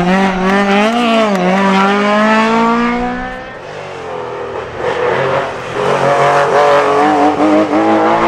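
Historic rally car engine accelerating hard, its pitch climbing for about three seconds. It drops away briefly, then a rising engine note returns about five seconds in.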